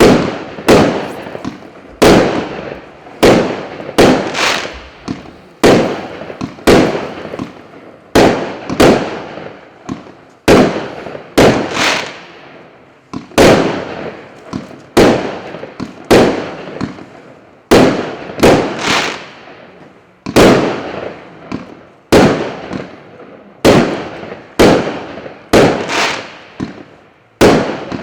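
A 36-shot, 0.8-inch consumer fireworks cake firing its shots one after another, about one a second, each a sharp bang that trails away before the next.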